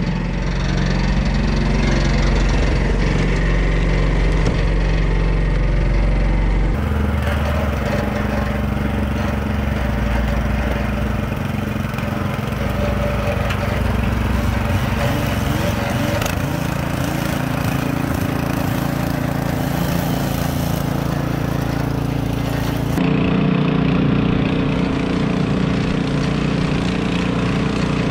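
Small gasoline engines running steadily, in three stretches whose engine note changes abruptly about seven seconds in and again near the end.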